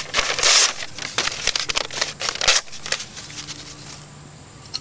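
Paper crumpling and rustling in hand, loudest about half a second in, followed by scattered crackles and rustles that die down toward the end.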